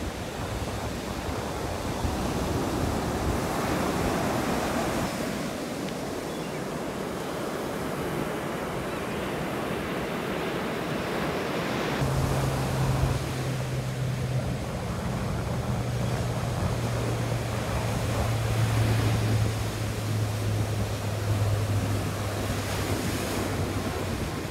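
Ocean surf breaking and washing up on a sandy beach, with wind on the microphone. A steady low hum comes in about halfway through.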